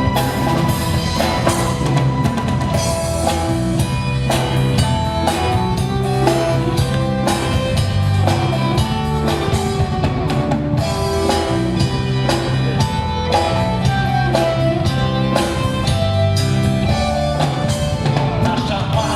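Live rock band playing an instrumental passage without vocals: a drum kit keeps a steady beat under guitar and held melody notes.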